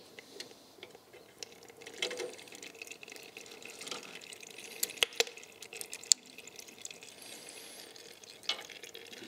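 Light clicks and metallic taps of a spanner and brake-line fittings as the banjo connections on the brake master cylinders are undone, with a few sharper clicks about five and six seconds in.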